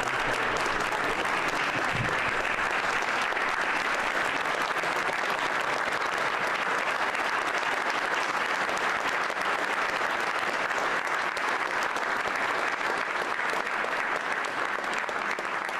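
Audience applauding: many hands clapping in a steady, sustained round of applause.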